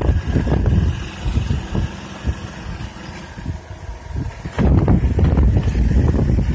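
A car in motion, its road and engine noise mixed with gusts of wind buffeting the phone's microphone. The low rumble grows louder about four and a half seconds in.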